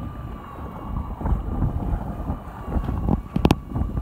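Wind buffeting the microphone on a boat at sea, over a steady hum from the boat. Two quick sharp knocks about three and a half seconds in.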